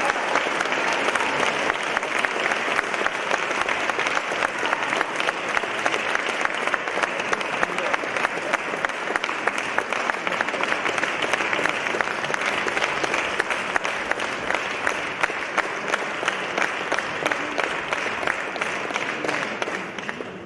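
Audience applauding: dense, steady clapping that starts to thin out and fade near the end.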